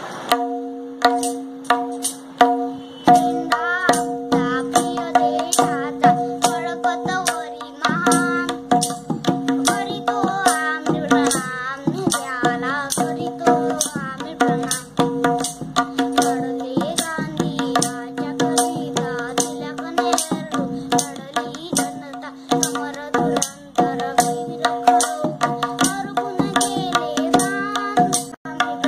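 A boy singing a Marathi patriotic song, accompanied by tabla strokes in a steady, even rhythm over a sustained drone tone.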